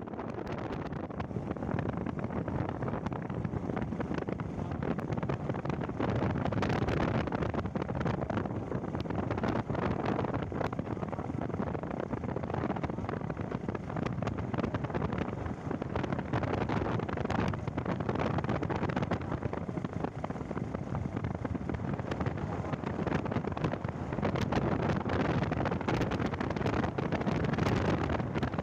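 Steady road rumble and wind noise of a moving vehicle, with air buffeting the microphone.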